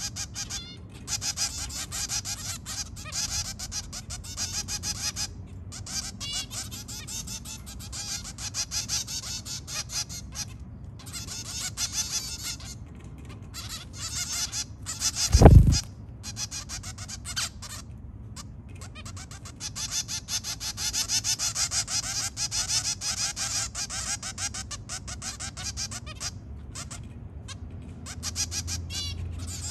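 Zebra finch adults and fledglings calling from a cage: a dense, busy stream of short, nasal beeping calls, with the youngsters' open-beaked begging calls among them. About halfway through comes one brief, loud, low thud.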